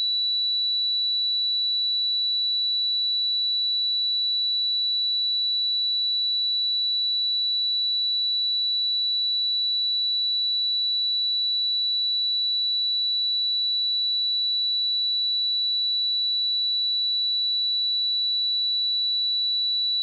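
Pure 3945 Hz sine-wave test tone, a single steady high-pitched note held at constant level.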